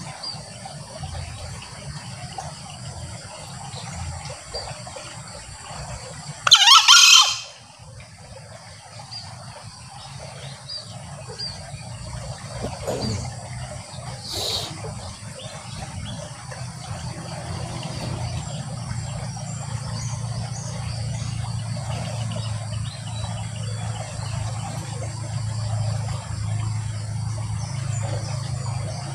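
Male green junglefowl giving one short, shrill crow about six and a half seconds in, with a fainter call around fourteen seconds. Steady background hiss with a low hum throughout.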